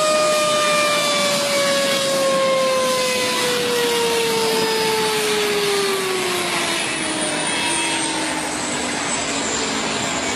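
Aircraft engine running loud, a steady rush with a whine that slowly falls in pitch throughout.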